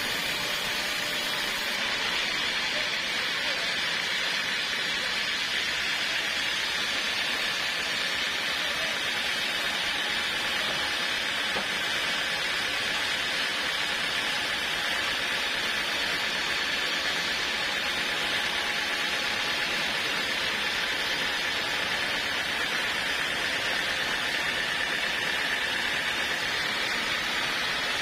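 Portable sawmill running steadily: an even mechanical noise with a high, steady whine that holds throughout.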